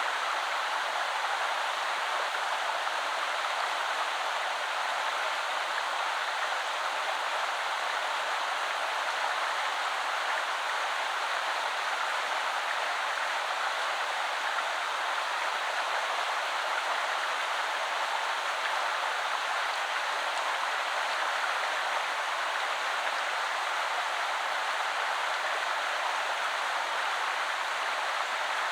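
Shallow woodland river flowing over stones: a steady, even rush of water.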